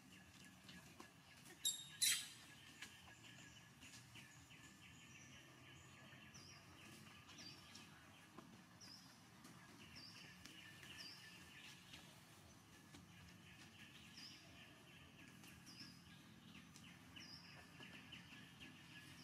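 Faint outdoor ambience: from about six seconds in, a bird repeats a short, high, falling chirp roughly once a second over a steady faint hiss. A sharp click comes about two seconds in.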